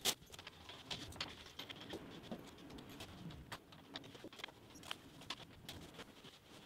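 Faint, rapid, irregular clicks and taps from hand work on a bed frame's parts and fittings, sped up in a time-lapse, with one sharper knock right at the start.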